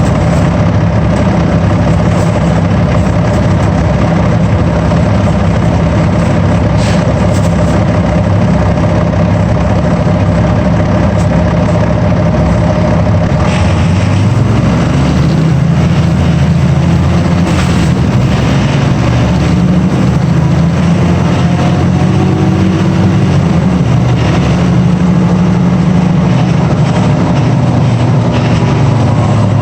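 A large vehicle's engine running steadily and loudly. About halfway through its low note changes, and a few rising tones follow in the second half.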